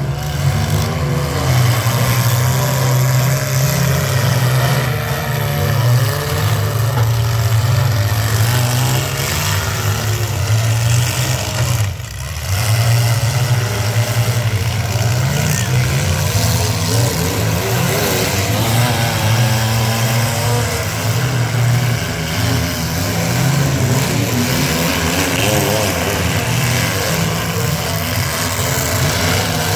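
Several mid-size demolition derby cars' engines running and revving hard together, their pitch rising and falling as the drivers accelerate and back off, with a brief lull about twelve seconds in.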